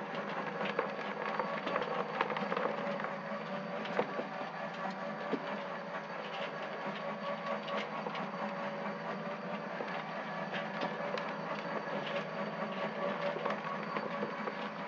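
Homemade trommel soil sifter running: its direct-drive 12-volt DC motor turns the drum with a steady hum of several tones, while soil and small stones tumble inside with frequent light clicks and rattles.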